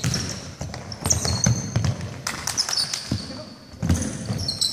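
Basketball bouncing on a hardwood gym floor amid play, with short high sneaker squeaks and players' voices echoing in the hall.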